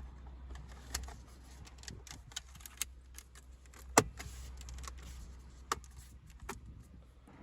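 Porsche Taycan cup holder inserts being pressed back into the centre console: light plastic clicks and rattles, with one sharp snap about four seconds in as a holder clips into place.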